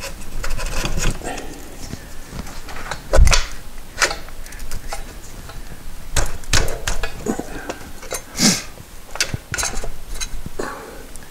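Motorcycle front fork tube clunking and scraping against the fork clamp as it is worked up through it, with scattered metallic knocks and clinks; the loudest knock comes about three seconds in.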